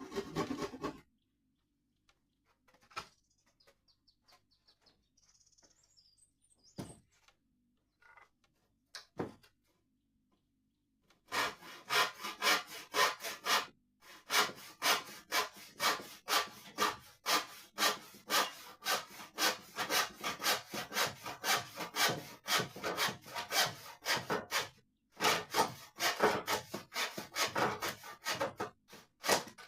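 Handsaw cutting wood: a few scattered knocks, then steady back-and-forth strokes about three a second from about eleven seconds in, with two short pauses.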